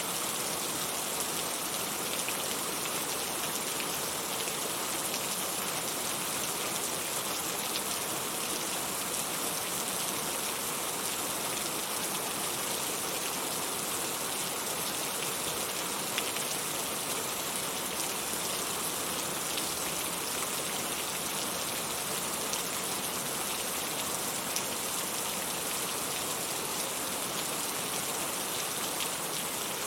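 Heavy rain falling steadily, an even hiss of rain with scattered sharper drop ticks. No thunder is heard.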